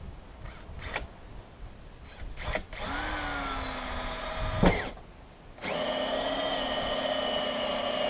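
Cordless drill boring a hole for a parking sensor through a car's plastic rear bumper. Two brief trigger blips come first, then a steady motor whine of about two seconds that ends in a short, sharp loud spike. After a pause it starts again for a longer run.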